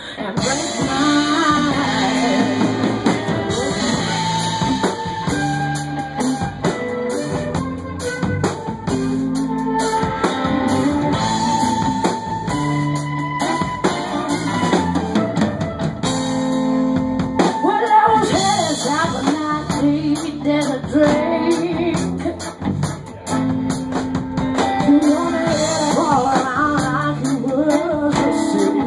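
Live rock-soul band performing a song: lead vocals over drum kit and guitar.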